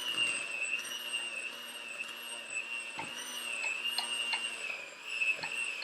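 Electric hand mixer whirring steadily as it beats cookie dough, its pitch wavering slightly with the load, with a few sharp clicks of the beaters knocking against the bowl.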